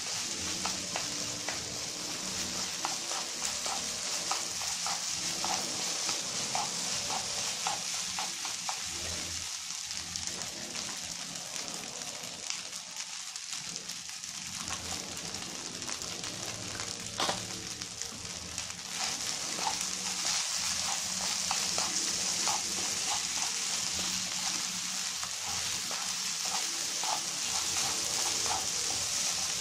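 Cooked rice sizzling in a frying pan as it is stir-fried, a steady hiss, with light scattered clicks of wooden chopsticks tapping and scraping through the rice against the pan.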